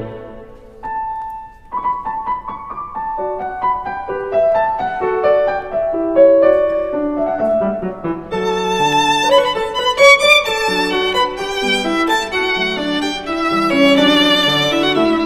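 Background music: a violin melody with piano accompaniment.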